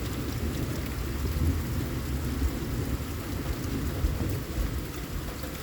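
Steady rain falling, with a low rolling rumble of thunder that eases toward the end.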